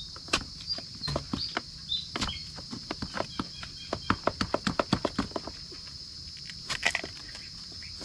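Steady high-pitched drone of insects, with irregular crackles, snaps and knocks over it and a quick run of them around four to five seconds in; a few short chirps in the first two seconds.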